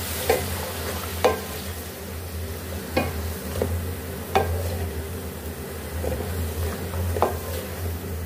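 Wooden spatula scraping and knocking against a metal pan as chicken, peas and green onions are stirred in hot oil, with a steady sizzle of frying underneath. The strokes come irregularly, roughly one every second.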